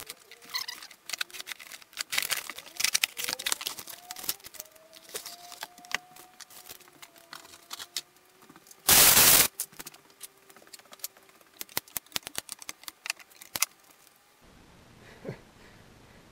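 Unpacking bar clamps from a cardboard shipping box: irregular rustling, clicks and knocks of cardboard, wrapping and metal clamp parts being handled, with one loud half-second rasp about nine seconds in. It drops to faint room tone near the end.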